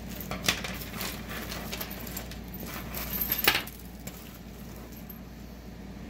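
Small metal costume-jewelry pieces (chains, bangles, earrings) clinking and jangling against each other as they are handled and sorted, with rustling of the plastic bag they came in. There are two sharper clinks, about half a second in and about three and a half seconds in, and it goes quieter after that.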